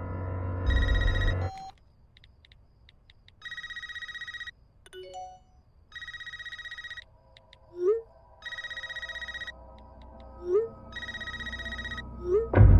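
Electronic telephone ringer trilling in five rings of about a second each, one every two and a half seconds, with short low rising tones between the later rings. A low rumbling film score fades out about a second and a half in, and a loud hit comes right at the end.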